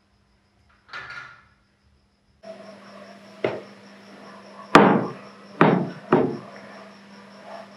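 A short soft rustle about a second in, then over a faint steady hum four sharp knocks, the last three louder and coming in quick succession.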